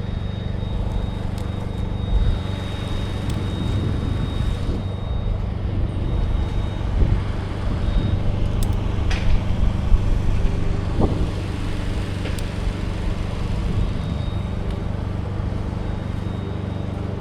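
Engine of heavy tree-work equipment running steadily, with a thin high whine over it for the first several seconds and a few sharp knocks partway through.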